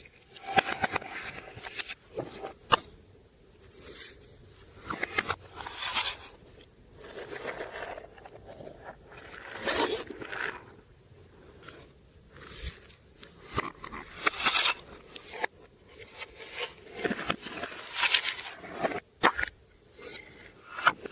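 Glossy slime being mixed and stretched, giving sticky, crackly noises in irregular bursts every second or two.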